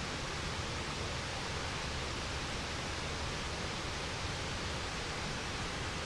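Waterfall: a steady, even rush of falling water with no breaks or changes.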